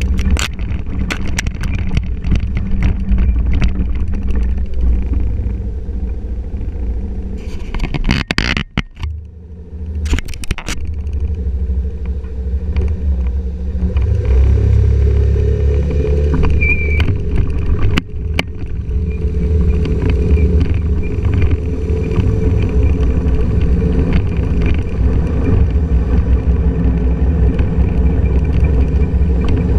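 Honda scooter riding along: its engine and wind buffeting the microphone make a steady low rumble, broken by scattered sharp knocks and a brief lull about eight to ten seconds in, heavier again from about halfway.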